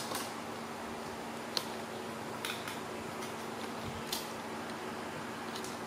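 Quiet room tone: a steady low hum with a few faint, scattered clicks.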